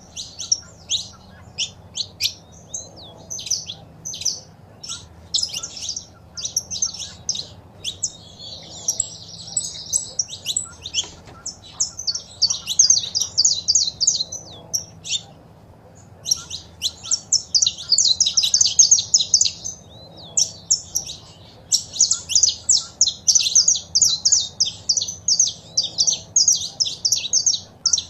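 Saffron finches chirping and singing: long runs of quick, high chirps and trills, with a short pause about midway, over a faint low steady hum.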